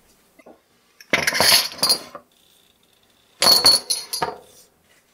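Small glass shot glasses clinking as they are set down on a kitchen counter and knocked against one another, in two quick clusters of clinks with a high ringing: one about a second in and one about three and a half seconds in.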